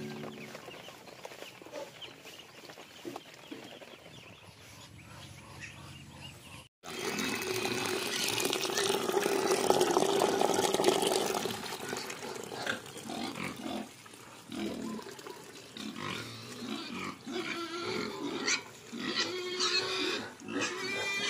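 Pigs squealing and grunting. The calls start suddenly about seven seconds in, are loudest for the next few seconds, then come as shorter, separate calls.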